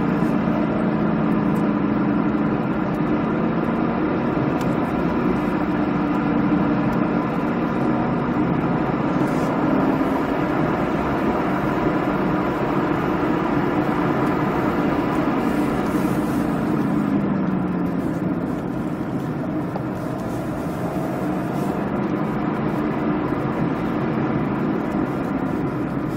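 Ford Mustang engine pulling steadily, heard from inside the cabin, its note rising and falling several times with the throttle and gear changes.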